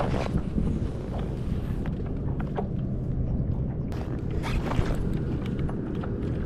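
Steady rumble of wind on the microphone over water lapping against a kayak hull, with scattered light clicks and small splashes, a cluster of them about four to five seconds in.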